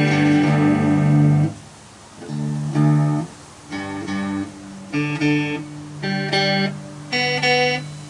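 Homemade guitar with a metal pan for its body, played on the lap: plucked notes ringing on in short phrases, with a brief drop in level about a second and a half in.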